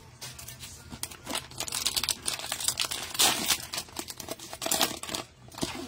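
Cellophane wrapper of a Mosaic football card pack crinkling and tearing as gloved hands pull it open: an irregular crackle with louder rips about three seconds in and again near the end.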